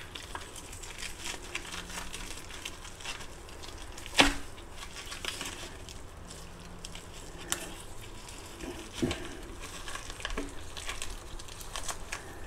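Wet, crackling handling noises of gloved hands tearing the gills and innards out of a John Dory, with a sharp knock about four seconds in and a few smaller knocks later.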